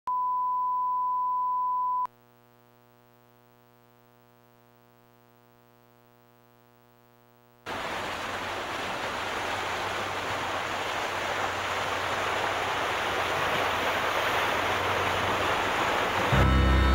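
A steady 1 kHz test tone that cuts off after about two seconds, then a few seconds of near silence. A rushing hiss of noise then comes in and slowly swells, and a deep, loud music note starts near the end.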